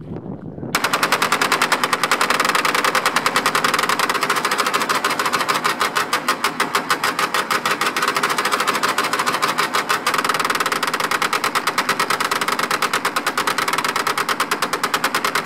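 Twin custom-built .308-calibre M1919 belt-fed machine guns firing together in one long continuous burst of rapid shots. The fire starts about a second in and does not let up until it cuts off at the very end.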